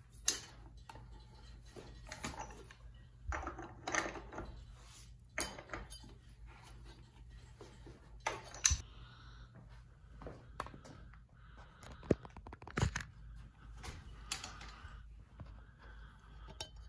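Mopar flathead six's crankshaft being turned over by hand with a breaker bar and socket on the crank pulley bolt: scattered metallic clicks and clinks, with a few sharper knocks.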